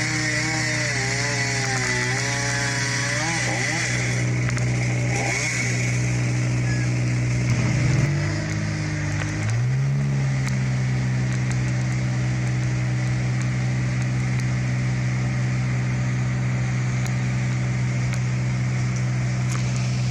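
Tree-removal power equipment engines running steadily. A second engine's pitch rises and falls repeatedly in the first few seconds, and the main engine dips and climbs back up about 8 to 10 seconds in.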